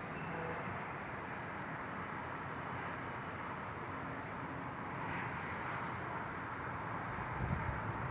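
Steady distant rumble in the night air with no distinct events, which the uploader takes for a military jet flying overhead; the low rumble swells near the end.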